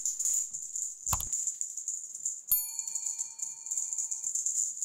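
A dull thump about a second in, then a sharp click and a single small bell ding that rings for nearly two seconds and stops abruptly, over a continuous high jingling rattle.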